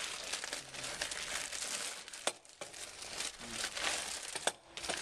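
Clear plastic bag crinkling as it is handled and pulled around a new headlight bowl assembly. There is a short break a little past two seconds in, and a sharp click near the end.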